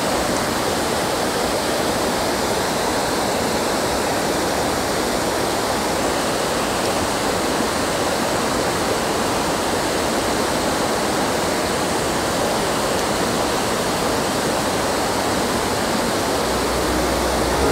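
Creek water pouring over a low dam spillway: a steady, even rush of falling water.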